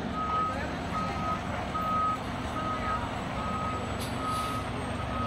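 A fire engine's reversing alarm beeps steadily, about one beep a second, over the rumble of its running diesel engine as the rig backs up.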